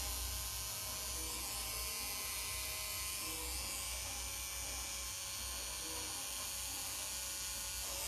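Electric tattoo machine running with a steady buzz as the needle works into skin.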